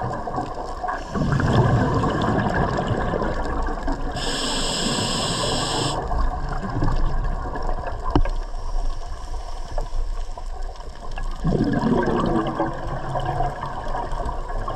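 Scuba diver breathing through a regulator, recorded underwater: exhaled air bubbling and gurgling about a second in and again near the end, and a hissing inhale through the regulator from about four to six seconds in.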